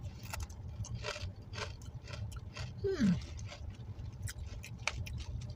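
Crunchy chewing of a dry, crispy ramen noodle snack, a crackly crunch every half second or so, with a short falling 'mm'-like vocal sound about three seconds in.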